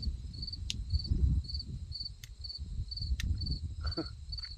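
Cricket chirping steadily, about two short high chirps a second, over a low rumble, with a few sharp ticks.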